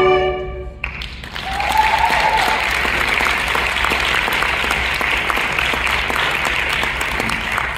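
A concert band's final held chord cuts off just under a second in, and the audience breaks into steady applause, with one short cheer soon after it starts.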